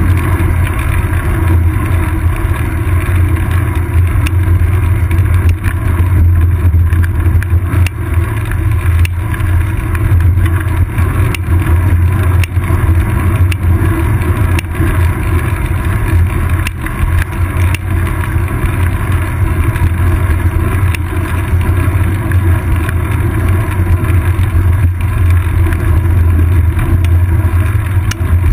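Steady rumble of wind and road vibration picked up by a seat-post-mounted GoPro Hero 2 on a moving bicycle, with scattered small clicks and knocks from bumps in the road.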